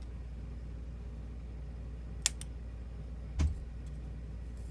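Two small sharp metallic clicks, the second with a light knock, from tweezers handling a lock's pins and spring as they are pulled out of a pin chamber, over a steady low hum.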